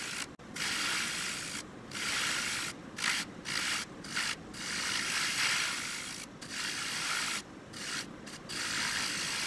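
Turning tool cutting the outside of a spinning segmented wood bowl blank on a lathe: a loud shaving hiss, broken by about ten short breaks.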